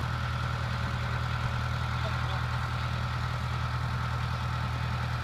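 Narrowboat engine idling steadily, a low even throb with a faint steady high tone above it.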